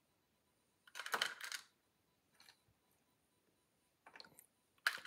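Light clicks and rattles of jumper wires and small electronic components being handled and set down on a desk mat: a cluster about a second in, then a few softer clicks.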